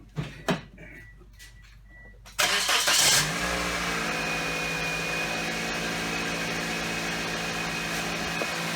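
2007 Pontiac Vibe engine cranked and started about two and a half seconds in, with a brief rev, then settling into a steady idle. The idle is quiet, with no exhaust leak at the freshly repaired manifold joint (new donut gasket and spring bolts). A few light clicks come before the start.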